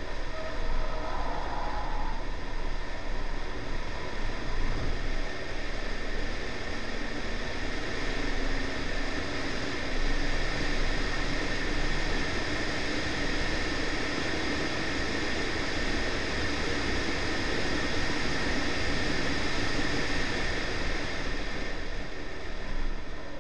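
Honda Civic's B18C4 1.8 VTi four-cylinder engine pulling hard at speed down a straight, under heavy wind and road noise from a camera mounted outside on the car's body. The engine note climbs slowly through the middle.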